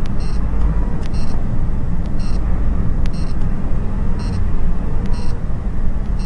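Steady road and engine noise of a car driving on a snowy highway, heard from inside the cabin, with a faint short high-pitched beep repeating about once a second.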